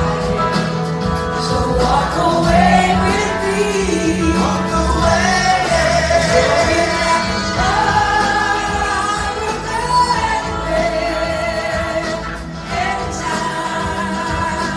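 Live rock band: a woman sings lead over electric guitars and drums, with the melody moving in long held notes throughout.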